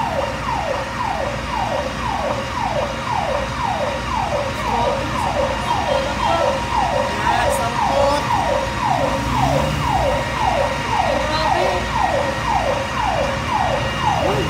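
Fire truck's electronic siren sounding a fast repeating falling wail, about two sweeps a second.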